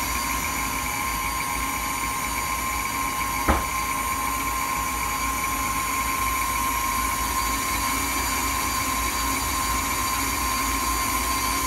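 KitchenAid stand mixer running at a steady speed, its wire whip beating cake batter in a glass bowl, with a steady motor hum and whine. A single sharp click comes about three and a half seconds in.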